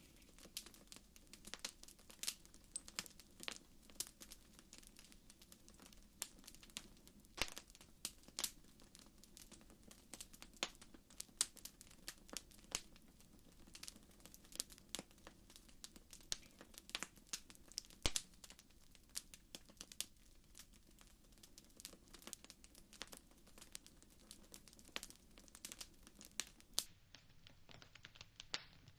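Wood fire in a fireplace crackling: irregular sharp pops and snaps, several a second and some much louder, over a faint steady low rumble.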